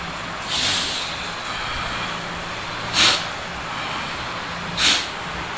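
Three short, hissing bursts of forced breath from a person, about two seconds apart, over a steady low hum.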